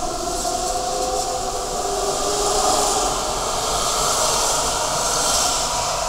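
Berlin S-Bahn class 480 electric train accelerating away from the platform. Its traction motors give a whine that rises in pitch over the hiss of wheels on rail. The sound eases off a little near the end as the last car passes.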